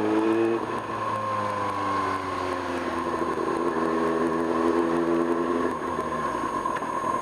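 Kawasaki ZX-6R's inline-four engine under way. The revs climb, then drop sharply about half a second in and fall away. The engine holds steady for a few seconds, then its note fades near the end, over a steady rush of riding noise.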